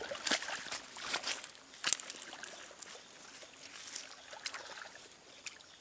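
Water splashing and sloshing in a shallow stream, in a run of irregular splashes with the sharpest about two seconds in.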